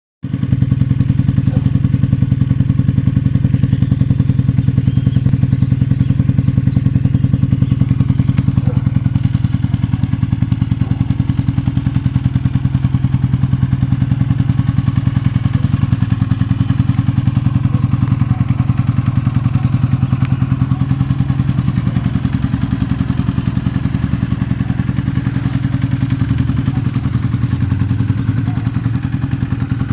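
Honda CB450DX motorcycle's air-cooled parallel-twin engine running steadily at an unchanging speed, a rapid even exhaust beat.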